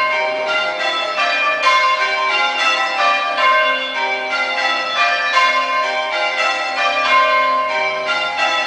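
Church bells rung in rounds: the bells strike one after another in the same order over and over, in a steady, even rhythm, each stroke ringing on into the next.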